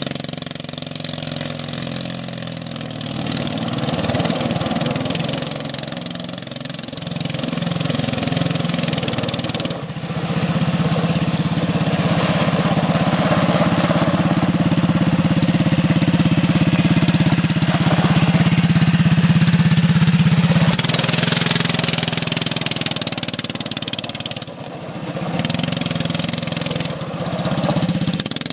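The small engine of a homemade quarter-scale RC truck running continuously, its speed rising and falling with the throttle. It holds a steady, higher note for several seconds in the middle and dips briefly twice, about ten seconds in and a few seconds before the end.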